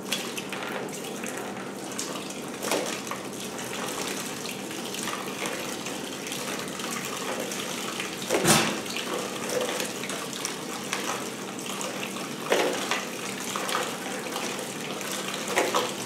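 Dirty flushing petrol pouring in a steady stream into a plastic tub and splashing on its surface, with a few knocks, the loudest about halfway through.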